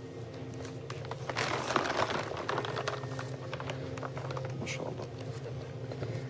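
Heavy, stiff pages of a huge old Quran manuscript being lifted and turned, rustling and crackling, loudest about one and a half to two and a half seconds in, over a steady low hum.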